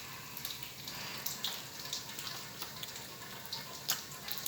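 Jackfruit pieces deep-frying in hot oil: a steady sizzle with scattered small pops and crackles.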